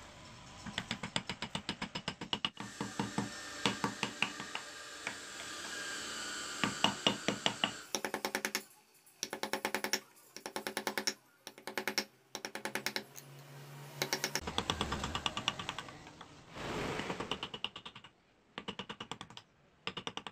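Small hand carving chisel cutting into wood: rapid sharp taps and clicks, several a second, in uneven runs with brief pauses.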